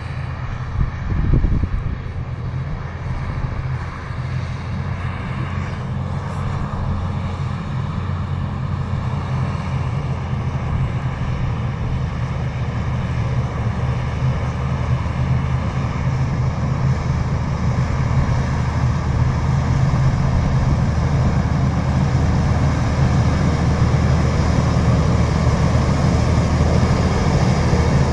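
Versatile 500 DT tracked tractor's diesel engine working steadily under load as it pulls a cultivator, growing gradually louder as it approaches. A brief gust of wind hits the microphone about a second in.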